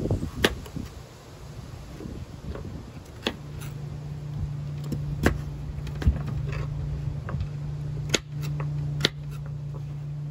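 A kitchen knife cutting raw butternut squash into cubes, the blade knocking sharply on a plastic cutting board a few times, a second or two apart. A steady low hum comes in about three and a half seconds in.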